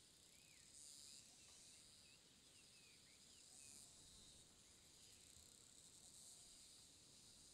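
Faint insect chorus: a steady high buzz that swells briefly a few times. A few faint, short bird chirps come in the first half.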